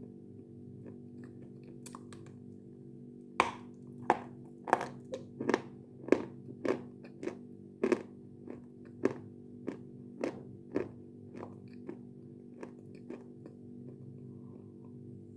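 Crunching and chewing a piece of Khrapovsky edible chalk: a run of loud, sharp crunches, about two a second, from about three seconds in until about eleven seconds, with fainter crunches before and after, over a steady low hum.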